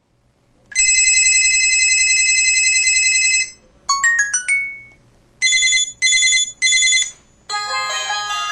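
MS300 mobile phone's built-in ringtones and effect sounds played one after another: a steady electronic tone held for about three seconds, a quick run of short notes, three short beeps, then a ringtone melody that starts near the end.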